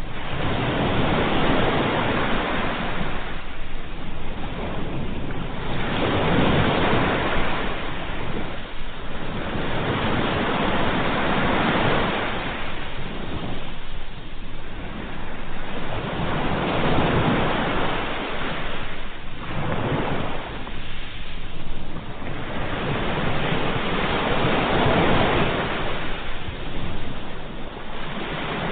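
Sea waves breaking and washing on a shore, a continuous surf that swells and ebbs every few seconds.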